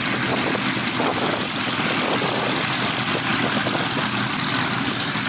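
Formation of de Havilland Tiger Moth biplanes flying past, a steady drone of their 130 hp de Havilland Gipsy Major engines and propellers.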